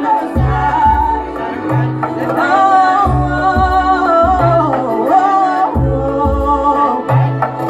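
A woman singing live into a microphone over music with repeating deep bass notes.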